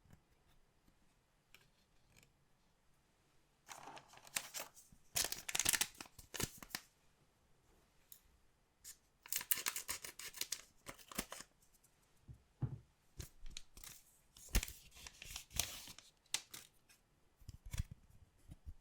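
Packaging of a collectible trading-card box being torn open, in three bursts of a few seconds each, with a few dull knocks between them.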